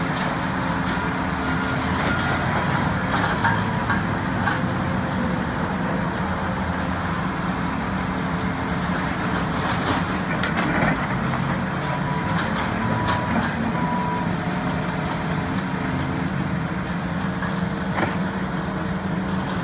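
Volvo tracked excavator's diesel engine running steadily while it works, with a few short knocks from the machine handling debris.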